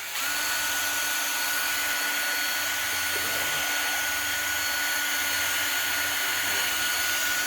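Power drill running steadily at constant speed for several seconds, held in reverse, so the bit spins backwards against the wood instead of biting.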